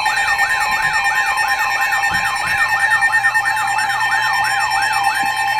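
Emergency Alert System attention signal: a loud, steady electronic alarm tone with a rapid siren-like warble rising and falling about two and a half times a second, cutting off near the end. It announces an incoming weather warning broadcast.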